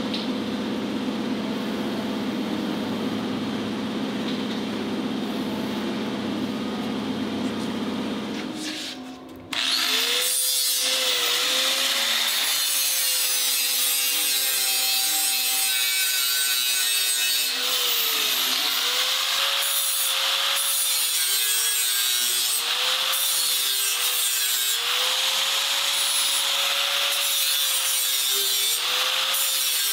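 Handheld electric angle grinder grinding sheet metal, its motor tone sagging each time the disc is pressed into the work and rising again as it eases off. For about the first nine seconds a steadier machine hum runs before the grinding sound takes over.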